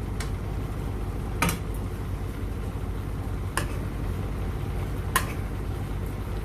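A steady low hum under three sharp metallic clinks of a utensil against a cooking pot, spaced about two seconds apart.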